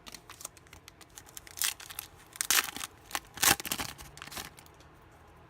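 A trading-card pack's wrapper being torn open and crinkled by hand: a run of irregular crackling tears, loudest past the middle, dying away about four seconds in.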